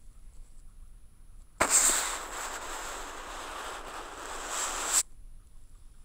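An ink-loaded brush dragged across paper in one long stroke, amplified by a contact microphone on the sheet. It makes a loud, dense scraping hiss that starts abruptly about a second and a half in, swells again near the end and cuts off sharply after about three and a half seconds.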